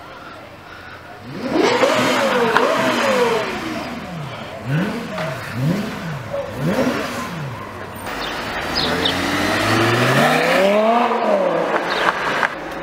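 A sports car engine revved while stationary: two quick revs, then three short blips of the throttle, then a longer rev that climbs and falls away.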